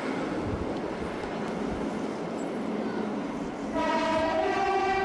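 Train running across the Forth Bridge, heard from aboard as a steady running noise. Near the end a horn sounds, stepping from a higher note to a lower one.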